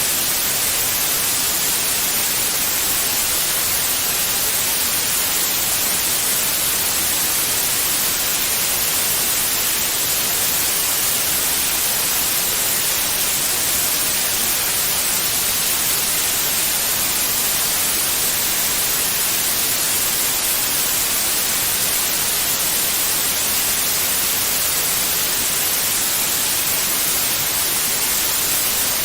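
Steady white noise, an even unbroken hiss with most of its energy in the high end, used as a sleep sound for babies.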